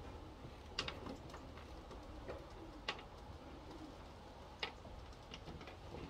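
Racing pigeons cooing faintly, with three sharp short taps or clicks spaced a second or two apart.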